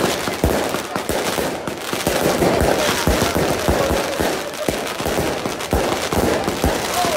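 Daytime aerial fireworks battery: a rapid, irregular run of bangs from small shells bursting overhead, several a second, over continuous crackling.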